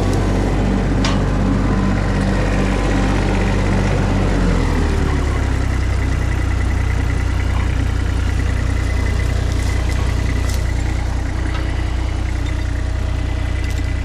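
Mini skid steer engine running steadily. About four and a half seconds in, its pitch drops as the engine slows.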